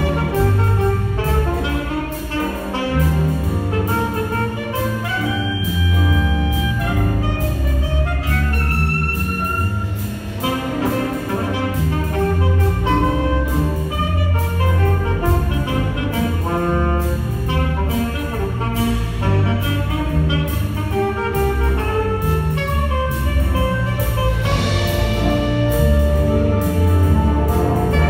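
Jazz big band playing: saxophones and brass ensemble over piano and drum kit, with a steady cymbal beat running through.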